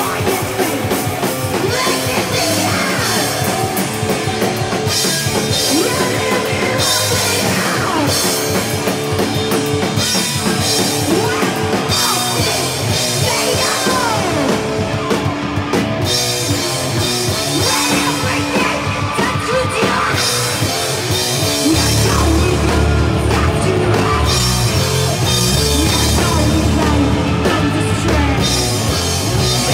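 Punk band playing live: distorted electric guitar, bass and drum kit, with vocals over them. The low end gets heavier about two-thirds of the way in.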